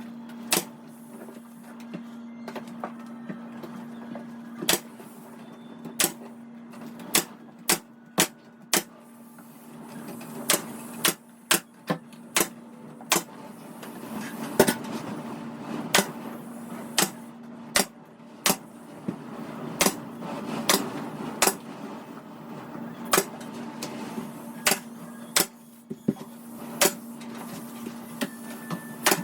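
Sharp single knocks, about one a second at uneven spacing, as door trim is fastened down, over a steady low hum.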